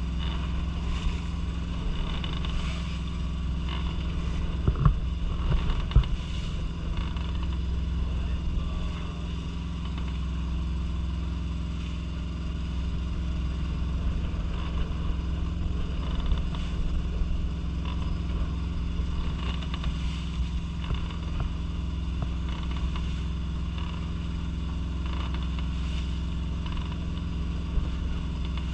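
Steady low drone of a fishing boat's onboard engine running, with a few sharp knocks about five and six seconds in.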